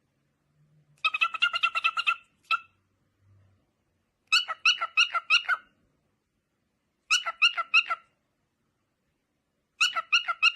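An animal giving quick, high-pitched chirping calls in four short bursts of rapid pulses, each about a second long with pauses between.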